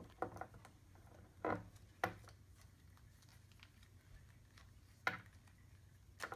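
Small clicks and soft rubbing of plastic as a wrestling action figure is handled and its tight removable jacket is worked off with the fingers. There are a few sharper clicks, about four, spread through the stretch.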